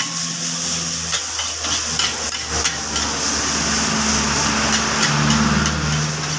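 Metal spatula knocking and scraping against a wok as fried rice is stir-fried, with repeated short clanks over a steady sizzle and a low steady hum underneath.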